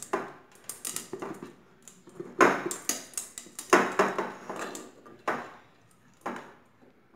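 Clear glass sphere being handled, knocking and clinking as a foam hat is fitted onto it and wire LED string lights are pushed around inside. A series of separate knocks and rattles, loudest about two and a half and four seconds in.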